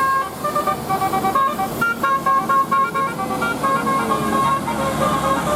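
Bus telolet basuri horn, a multi-note musical air horn, playing a quick melody of short, stepped notes.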